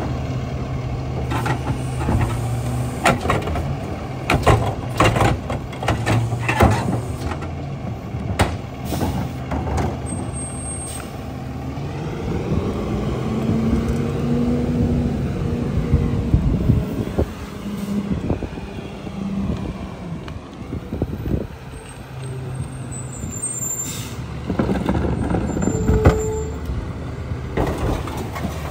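Rear-loader garbage truck's diesel engine running, with repeated clattering knocks as recycling carts and loose recyclables are banged into the hopper. Partway through the truck pulls off, its engine rising and then falling in pitch. Near the end an air-brake hiss and a brief brake squeal as it stops, followed by more knocks as carts are emptied.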